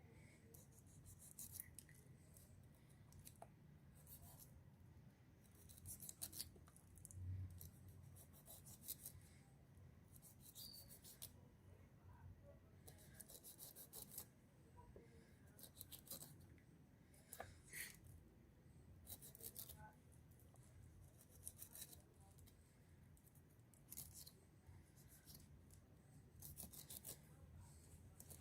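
Faint, short scraping cuts of a knife working at a peeled pineapple, cutting out its eyes, coming irregularly every second or two.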